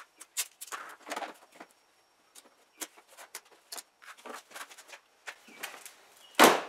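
Scattered light taps and rustles of hands working along a pickup's rocker panel, then, about six seconds in, a single loud thud as the 2021 Ford F-150's rear door is swung shut.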